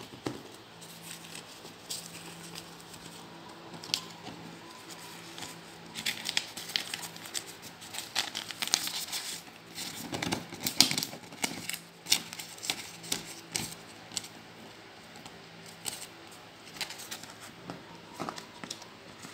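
Polymer Vietnamese banknotes crinkling and crackling as they are picked up off a bamboo mat and gathered into a stack. The crackle comes in irregular bursts and is busiest from about six to thirteen seconds in.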